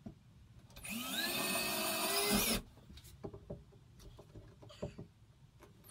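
DeWalt cordless drill with a quarter-inch bit drilling a hole into the wall. The motor spins up with a rising whine about a second in, runs for nearly two seconds, then stops. A few faint clicks follow.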